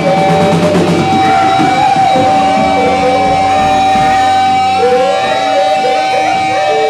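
Live experimental noise music played loud: a steady high tone is held from about a second in, over a dense layer of wavering, sliding pitched sounds.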